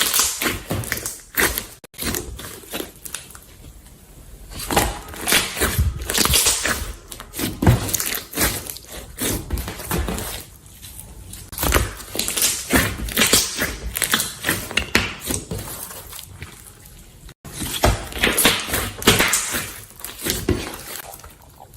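Slime being squeezed and pressed by hand, making irregular clusters of crackling, clicking squishes.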